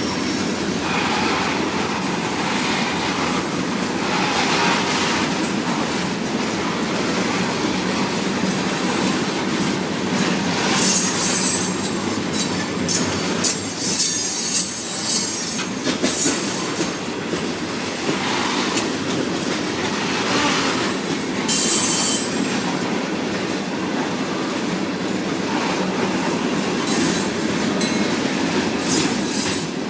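Freight train cars rolling past with a steady rumble and clatter of wheels on rail. Shrill wheel squeals break out about a third of the way in, again in the middle for a few seconds, and once more briefly about two-thirds through.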